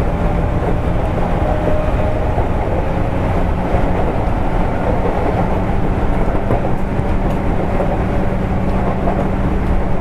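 JR East 205 series electric commuter train running on the line, heard from inside the car near its end: a steady rumble of wheels on rail with a low hum underneath.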